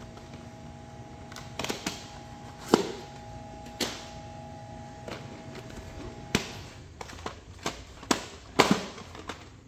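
Hard plastic clicks and knocks from VHS cassettes and their cases being handled and set down, sparse at first and coming more often after about six seconds. A faint steady hum stops about six seconds in.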